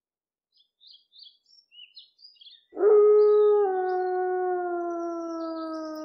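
Birds chirp faintly, then about three seconds in a gray wolf starts one long, loud howl that slowly falls in pitch.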